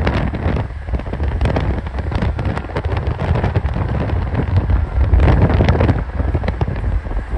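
Wind rush and road noise from a Mercedes-Benz E63 AMG (W212) at speed, under the low drone of its naturally aspirated 6.2-litre V8. It swells louder about five seconds in.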